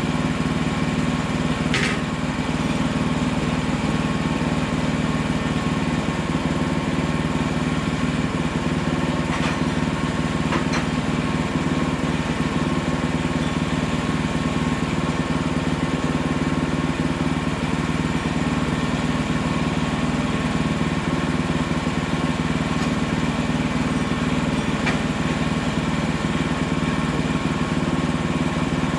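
The small engine of a Hudson Hunter portable bandsaw mill running steadily at an even speed, with a few faint clicks in the first ten seconds or so.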